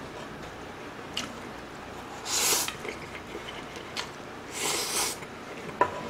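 Close-miked eating sounds: a person biting and chewing a mouthful of seasoned greens and meat, with two louder wet bursts of mouth noise about two and four and a half seconds in, and a few light clicks.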